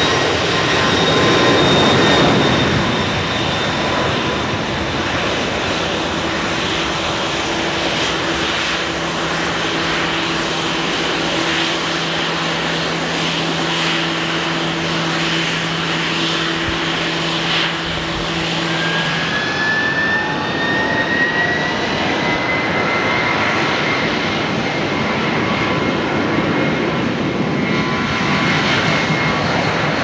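Airbus A310 jet engines at takeoff power as the airliner runs down the runway and lifts away, with a steady low drone through the middle. About two-thirds of the way in, the sound changes abruptly to a Boeing 767-300's engines on the runway, with a high whine rising in pitch.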